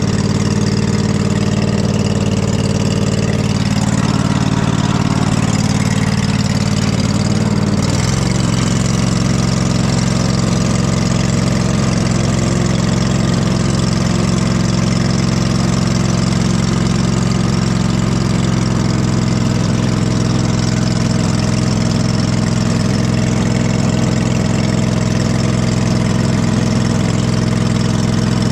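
Husqvarna riding lawn mower engine running steadily under way. Its note shifts between about four and eight seconds in, then settles at a new steady speed.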